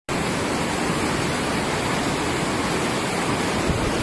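Fast-flowing floodwater of a swollen river rushing past, a steady dense noise of churning water with a strong low rumble.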